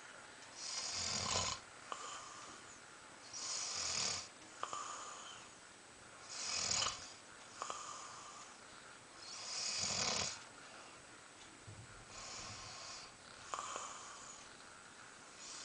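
A person snoring in sleep: five louder snores about three seconds apart, with softer breathing between them.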